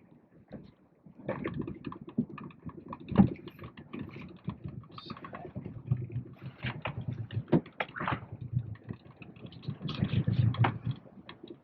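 Irregular clicks and knocks of fishing gear being handled on a small wooden boat, over a low hum that swells at times.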